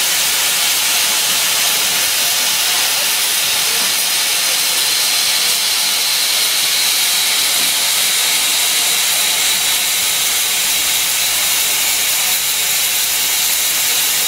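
Steam locomotive letting off steam: a loud, steady hiss that holds unbroken throughout.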